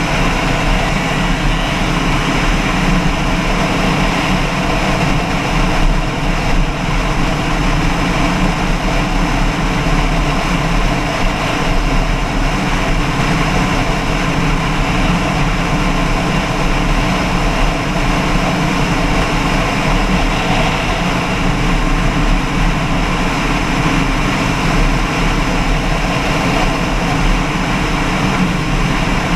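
Engine running steadily, a constant drone that holds the same pitch throughout.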